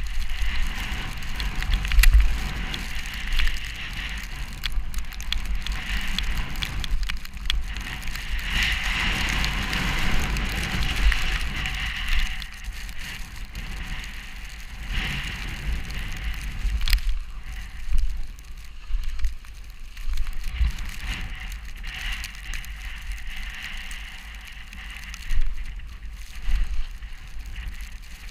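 Snowstorm wind buffeting the microphone: a gusting low rumble under a hiss that swells and fades over several seconds, with scattered crackles and clicks.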